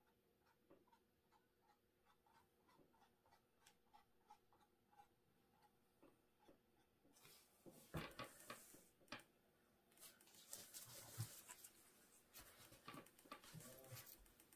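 Faint soft ticks of a small paintbrush dabbing acrylic paint onto a canvas, about two or three a second. About seven seconds in these give way to louder bouts of rustling and clicking.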